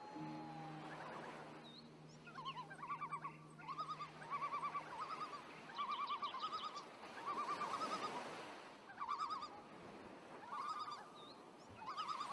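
Soundtrack of mixed sounds: low sustained tones that stop about halfway through, and from about two seconds in, short trilled animal calls, each a quick run of pulses, repeating about every second and a half.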